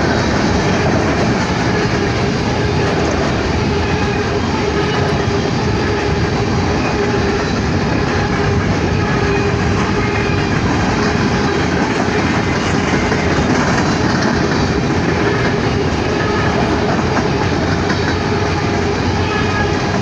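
Empty open-top coal cars of a freight train rolling past close by: a loud, steady noise of steel wheels on rail, with a thin steady tone running under it.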